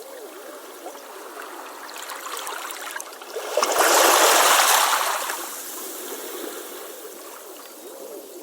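Beach waves: shallow water trickling and gurgling over the shore, then a wave breaking about three and a half seconds in, loudest for a second or so and washing out over the next two seconds.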